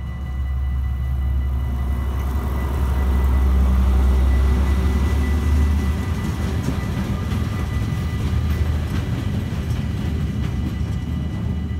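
A freight train of tank wagons rumbles and clatters past over the level crossing, loudest about four seconds in, with a rattling clatter of wheels from about six seconds in. The crossing's warning bells ring steadily throughout.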